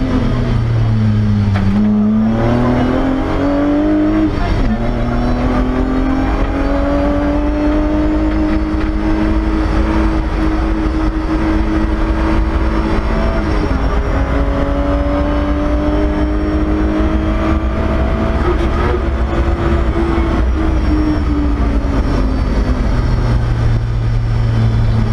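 BMW E30 rally car's engine at full throttle from inside the stripped cabin: the engine note climbs through the gears, with shifts about four and a half and thirteen seconds in, then drops as the driver eases off near the end.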